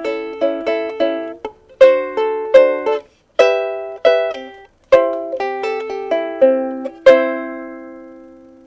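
Anuenue "1879" koa soprano ukulele played with the fingers: short plucked chords and notes in phrases with brief breaks. A last chord about seven seconds in rings out and fades.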